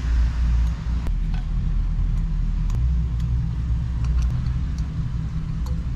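A steady low mechanical rumble, like a motor running, with a few faint clicks.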